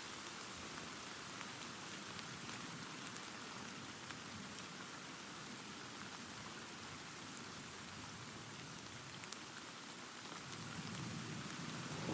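Steady rain falling: an even hiss with scattered fine drop ticks. Near the end a low rumble of distant thunder begins to build.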